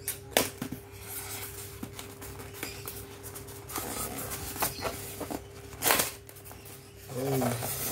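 Hands working at a white styrofoam packaging block to pry it open: the foam rubs and creaks, with several sharp snaps and cracks, the loudest about half a second in and again about six seconds in.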